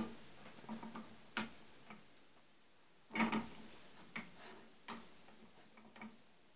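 Wooden spatula knocking and scraping against a non-stick frying pan and a glass dish as fried meat cutlets are lifted out of the pan: several irregular knocks, the loudest a little past three seconds in.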